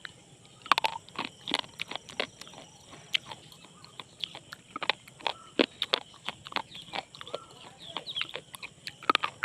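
Kangaroo slate pencil being bitten and chewed: sharp, irregular crunches and snaps, several a second, beginning about a second in.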